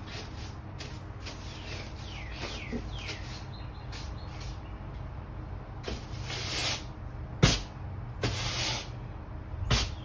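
Push broom scrubbing and knocking against a porch ceiling eave: two swishes of the bristles and two sharp knocks, the loudest about seven and a half seconds in. A few short falling bird chirps come a couple of seconds in.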